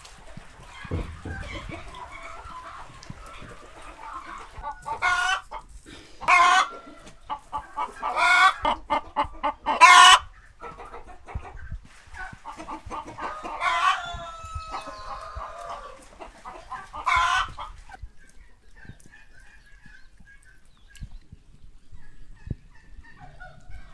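Chickens clucking and calling in a run of loud, sharp calls, with a rooster crowing about fourteen seconds in. Only faint calls remain in the last few seconds.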